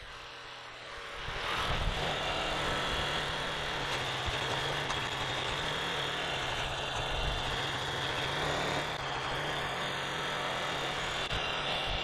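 Farm tractor engine running steadily, growing louder about a second in as the tractor is driven.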